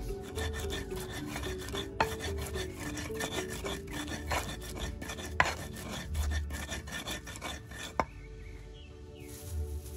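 Stone pestle grinding garlic in a stone mortar (cobek): a gritty rubbing and scraping of stone on stone, with three sharp knocks about two, five and eight seconds in. The grinding eases off near the end.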